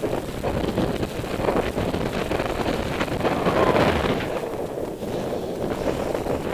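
Rushing wind buffeting the microphone of a camera on a paraglider pilot in flight, rising and falling in gusts.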